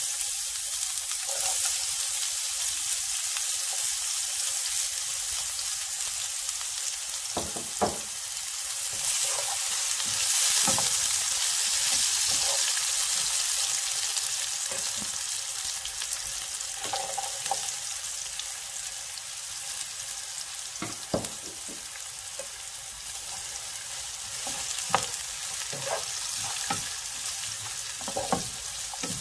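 Sliced red onion sizzling in hot oil in a pan. The hiss is strongest at first and slowly dies down, with occasional short taps and scrapes of a wooden spatula against the pan.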